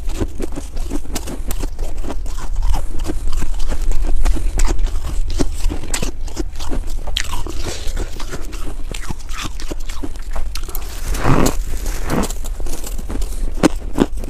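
Close-miked crunching of fresh snow being bitten and chewed: a dense run of crisp crunches, with a louder burst of crunching about eleven seconds in. A steady low rumble runs underneath.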